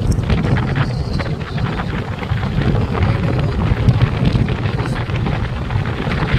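A vehicle driving along a road: steady deep rumble of engine and tyres, with wind buffeting the microphone.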